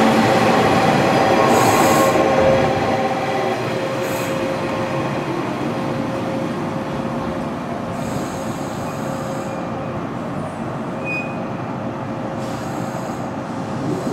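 JR Kyushu 415-series electric train running along a station platform, wheels on rail with a steady whine. Loudest for the first two and a half seconds, then somewhat quieter.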